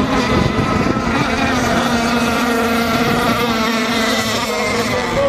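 Radio-controlled racing catamaran running at speed, its motor giving a steady whine that wavers slightly in pitch.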